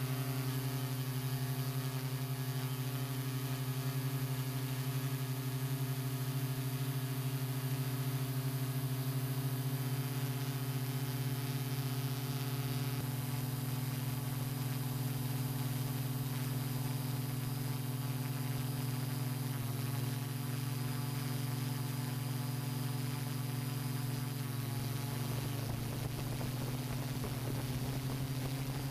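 Steady electric hum of a hexacopter drone's motors and propellers, a cluster of held tones that shifts slightly in pitch a few times.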